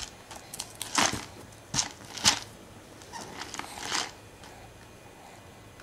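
A plastic snack canister handled by a baby: a few sharp knocks, the loudest about a second in and just after two seconds, then a run of small clicks.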